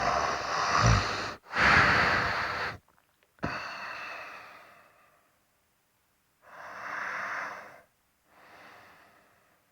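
A person snoring: a fluttering snore runs into the first second and a half, then comes a loud harsh breath. A sharp breath about three and a half seconds in fades away. Two quieter breaths follow near the end.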